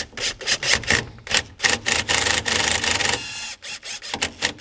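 A screw being driven by hand into the hood-latch handle mount, making rhythmic rasping strokes about four a second, with a longer continuous scrape in the middle.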